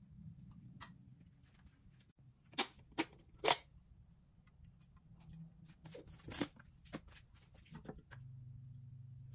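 Kitchenware being handled on a glass-top electric stove: a few sharp clicks and knocks, the loudest three close together in the first half, as the nonstick frying pan and a plastic cup of oil are set down and used. A steady low hum starts near the end.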